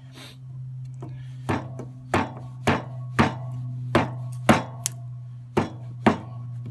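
A small Japanese axe chopping into a block of cherry wood, feathering it into thin curls for smoking wood. There are about eight sharp strikes, roughly one every half second to second, starting about a second and a half in, over a steady low hum.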